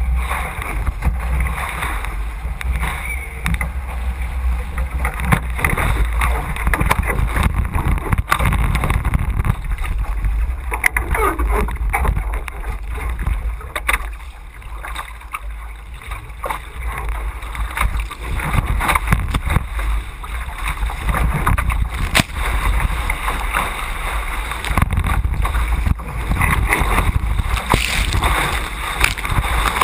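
Water rushing and splashing past a racing A Class catamaran's hull as it sails fast upwind, with wind buffeting the microphone. It eases off for a couple of seconds about halfway through as the boat tacks, then builds again, and spray washes over the microphone near the end.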